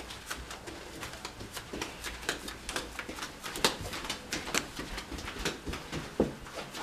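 Footsteps in flip-flops along a carpeted hallway: irregular sharp slaps of the sandals against heels, a few a second.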